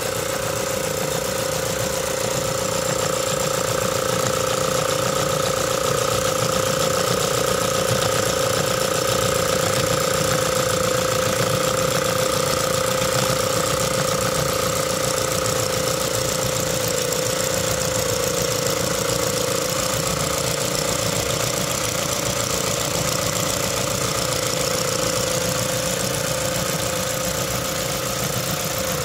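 Model steam locomotive chassis running on the bench, fed through a hose: a fast, steady exhaust beat and clatter from its cylinders and valve gear, with a steady whine over it.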